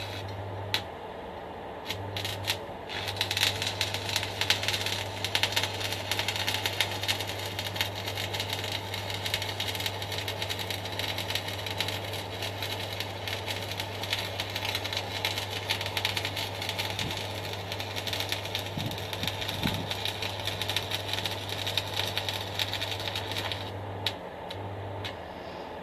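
Stick welder burning an E6013 rod: a few short crackles as the arc is struck, then the arc's steady dense crackle for about twenty seconds, stopping near the end, over the welder's low hum.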